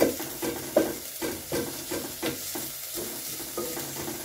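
Wooden spoon stirring onions frying in oil in a metal sufuria, knocking and scraping against the pot about three times a second over a steady sizzle.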